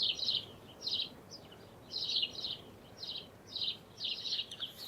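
A bird chirping over and over, in short high-pitched trilled phrases about every half second to a second.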